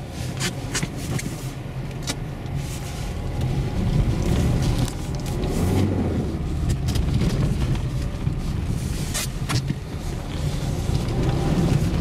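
Inside a car driving slowly over packed snow: a steady low rumble from the engine and from the Dębica Frigo HP2 winter tyres on snow. The rumble builds over the first few seconds, and the engine note rises and falls through a turn. A few sharp clicks are scattered through it.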